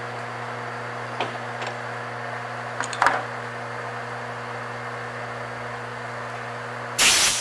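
Steady low machine hum from the metal lathe, with a few light clicks and a short, loud hissing burst near the end.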